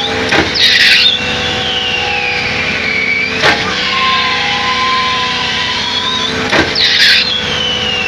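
Truck-mounted concrete pump test-running on its repaired hydraulic main pump, the twin pumping cylinders cycling with a sharp knock at each stroke changeover about every three seconds. A short hiss follows alternate knocks, and a high whine slides down and back up in pitch between them.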